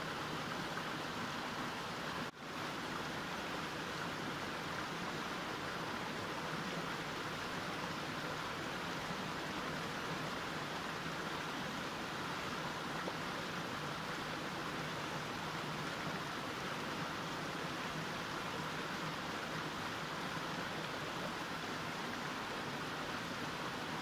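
Mountain stream running over rocks: a steady rush of flowing water, broken by a momentary dropout about two seconds in.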